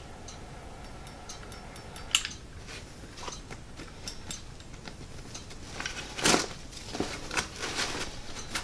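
Hands handling a nylon backpack: scattered small clicks and fabric rustling, with a sharp click about two seconds in and a louder rustle about six seconds in.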